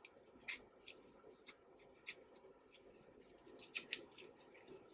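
Cuisinart paring knife cutting around the core of a tomato: faint, scattered little clicks and crackles as the blade works through the skin and flesh, with a few sharper ones near the end.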